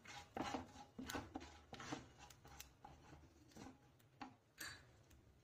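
Faint, irregular little clicks and scrapes in a frying pan as whole spices go into the hot butter and oil. They thin out near the end.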